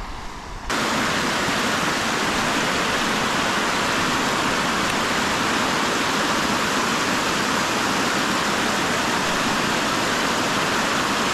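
Steady rush of fast-flowing water, starting abruptly under a second in and holding at an even level.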